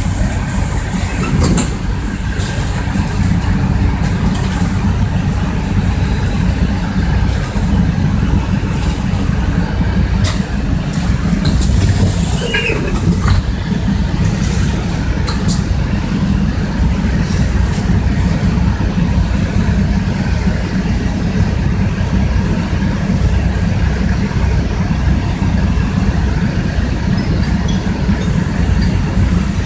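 Interior noise of a city bus: a steady, low engine drone with a throbbing pulse. A few rattling clicks come from the bus's body and fittings, and a short falling squeal sounds about twelve seconds in.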